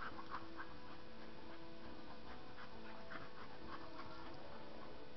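Playing dogs, a Staffordshire Bull Terrier and a Bullmastiff, panting in quick, irregular breaths as they scuffle on grass.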